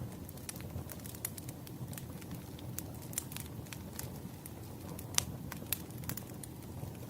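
Firewood burning, with a steady low rumble of flames under frequent irregular crackles and pops; one louder pop comes about five seconds in.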